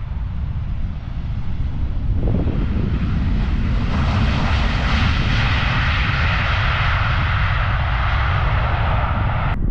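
Boeing 737-800 airliner's CFM56-7B jet engines heard from beside the runway as it lands and rolls out. The rushing engine noise swells about four seconds in, holds, then cuts off suddenly near the end, over a low rumble of wind on the microphone.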